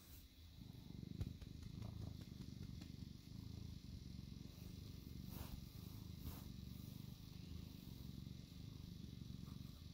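Domestic cat purring steadily close to the microphone, a low continuous purr.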